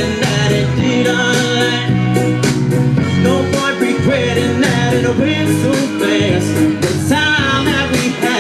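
Music: a country-style song with guitar and a singing voice.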